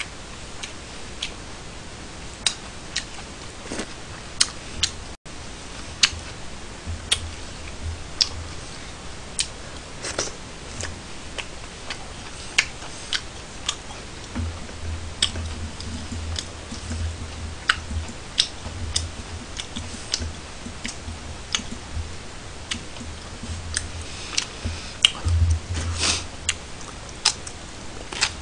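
Close-miked eating: chewing and mouth smacks on chewy noodles, heard as irregular sharp clicks every second or so, with soft low thuds in the second half.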